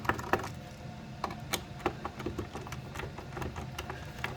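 Torx 10 screwdriver working a small screw on a terminal clamp: scattered light, irregular clicks and taps of metal tool on screw, over a faint low hum.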